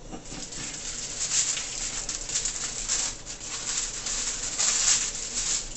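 Aluminium foil crinkling and rustling as it is peeled back off a baking tray, an irregular run of small crackles.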